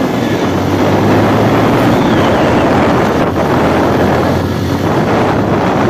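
Wind rushing over the microphone on a moving motorbike, with the engine's low steady hum underneath, clearest in the first couple of seconds.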